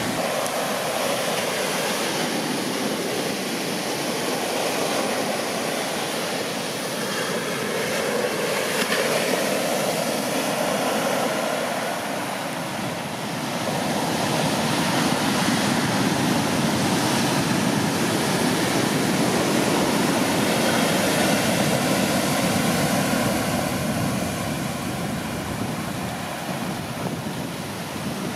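Ocean surf breaking and whitewater washing up the sand, a steady rushing noise that swells louder and eases off as the waves come in.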